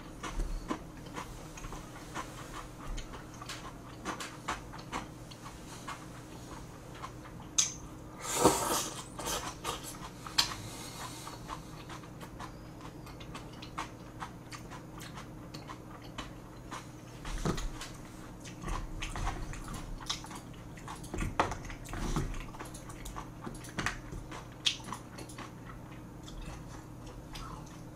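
A person eating close to the microphone: chewing and mouth noises with scattered short clicks of chopsticks against plastic takeout containers, and one louder, longer noise about eight seconds in. A faint steady hum runs underneath.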